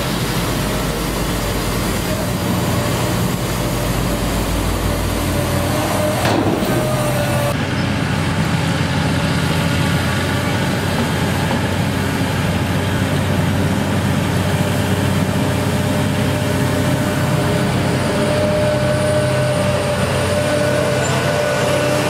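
Diesel engine of a John Deere 764 rubber-tracked dozer running steadily as it pushes and spreads gravel with its blade.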